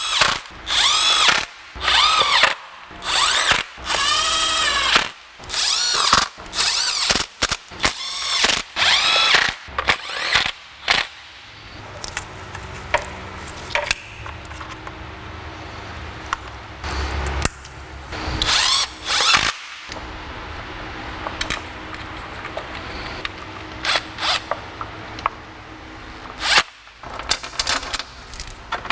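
Cordless power driver running in valve cover bolts: a dozen or so short spins in quick succession, each winding up and dropping off. After about eleven seconds the runs thin out to a few scattered ones among small clicks of tool and bolt handling.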